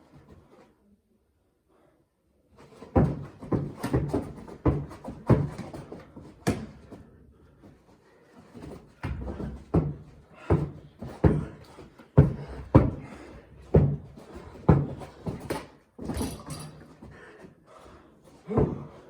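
Basketball being dribbled on a hard indoor floor: a steady run of bounces, about one and a half a second, that starts a few seconds in and breaks off briefly around the middle.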